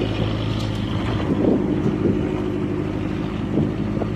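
A motor vehicle's engine running steadily at an even pitch, with a few light knocks over it.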